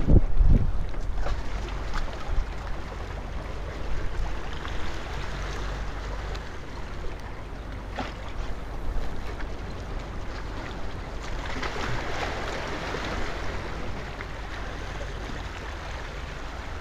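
Small waves washing and splashing against jetty boulders, with steady wind rumbling on the microphone and a swell of wash about twelve seconds in.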